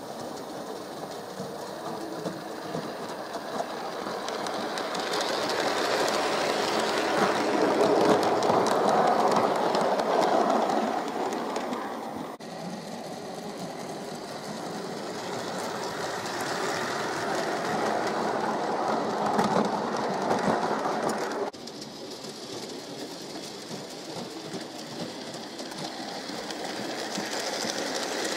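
Scratchbuilt garden-railway model train running along its track, growing louder as it approaches and loudest about eight to ten seconds in. The sound drops suddenly about twelve seconds in and again about twenty-one seconds in, then builds again near the end.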